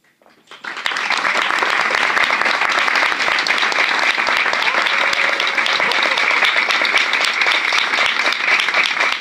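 Audience applauding, a dense steady clapping that breaks out about a second in.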